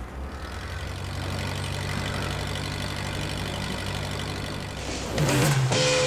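Engine of a heavy machine with a giant tyre idling with a steady low hum. Guitar music comes in about five seconds in.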